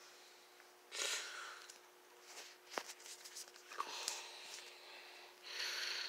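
Quiet room: two faint breaths or sniffs near the microphone, about a second in and near the end, with a few clicks of the phone being handled in between, over a faint steady hum.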